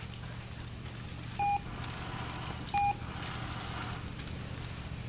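Two short electronic beeps about a second and a half apart, each one steady tone: the Manners Minder remote treat dispenser's tone, which signals the dog that a treat is coming. A steady low hum runs underneath.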